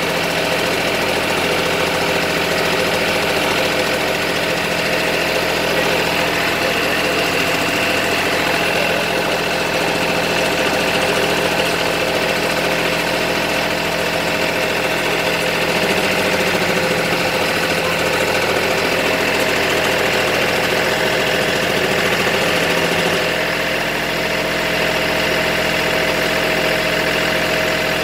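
Tractor-driven chaff cutter running steadily, its spinning blades chopping rice straw and blowing out the chaff, over the steady drone of the tractor engine.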